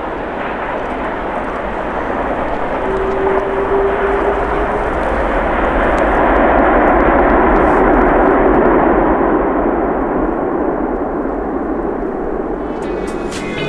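Jet engine noise from an Air China Airbus A330-343 with Rolls-Royce Trent 700 engines on its landing approach. A steady rumble swells to its loudest about halfway through and then eases off, with a brief steady whine a few seconds in.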